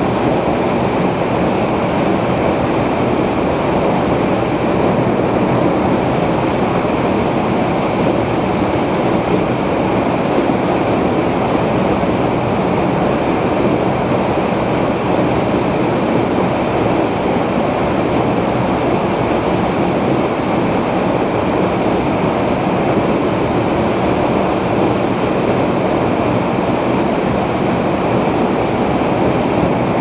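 A waterfall dropping about 36 m into its plunge pool: a steady, loud rush of falling water.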